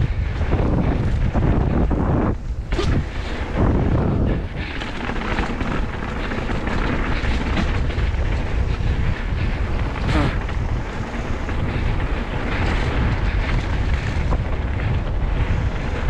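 Wind buffeting a GoPro's microphone as a mountain bike rolls fast down a dirt trail. Tyre noise runs under it, with scattered knocks and rattles as the bike goes over bumps.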